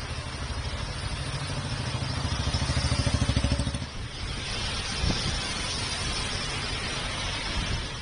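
A motor vehicle engine running close by, growing louder over nearly four seconds and then cutting off abruptly. After that comes a steady hiss of heavy rain and traffic on a wet road, with one short knock about five seconds in.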